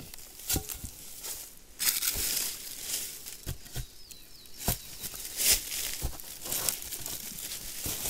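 Dry branches and leaves rustling and crackling as they are handled and laid down, with several sharp knocks of wood on wood.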